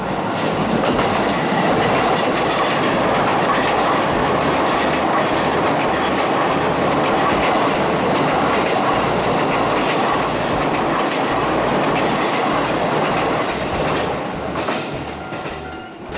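JR Ome Line electric train passing close by at a level crossing, its wheels clattering over the rail joints. The noise swells in the first second, stays loud for about fourteen seconds, then dies away near the end.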